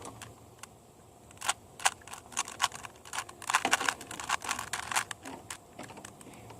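Plastic Rubik's cube being twisted, a run of quick, irregular clicks and clacks as its layers are turned, starting about a second and a half in.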